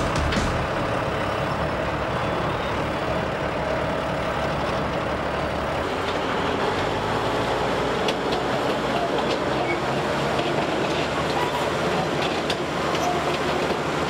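Heavy construction machinery running steadily. A faint steady whine stops about six seconds in, and a few knocks and clicks come later.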